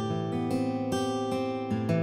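Yamaha PSR-SX900 arranger keyboard playing a guitar voice: plucked guitar notes and chords with a new note every half second or so.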